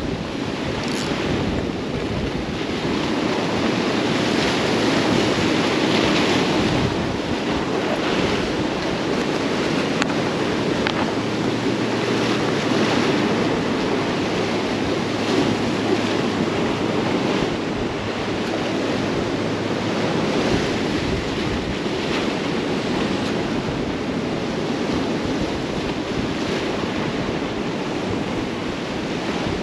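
Ocean surf breaking and washing against the granite rocks of a jetty: a continuous wash that swells every few seconds as waves come in.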